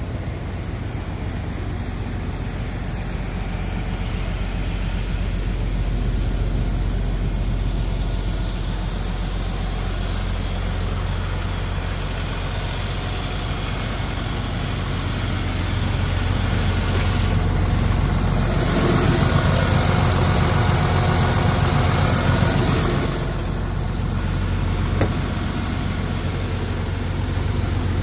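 Volvo FL truck's diesel engine idling steadily with a low, even hum, with a louder rush of noise for a few seconds past the middle.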